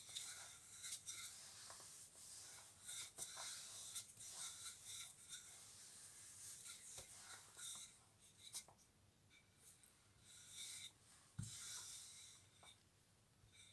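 Faint rubbing of a wooden rolling pin rolling out soft yeast dough on a silicone pastry mat, in repeated back-and-forth strokes that grow sparse in the second half.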